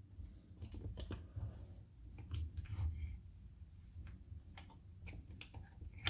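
Scattered light clicks and taps of a small metal padlock being handled and set into a vise, with a sharper click at the end, over a steady low hum.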